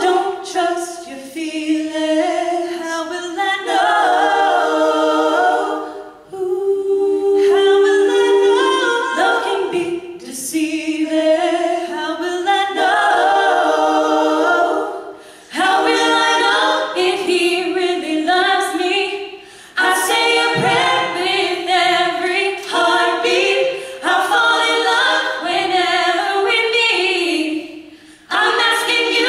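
Mixed vocal quartet, three women and a man, singing a pop song a cappella in harmony, in phrases separated by brief breaths and pauses.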